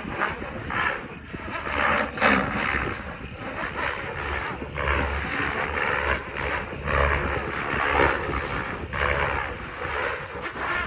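Large 700-size RC helicopter flying, its rotor noise swelling and fading every second or two, with wind on the microphone.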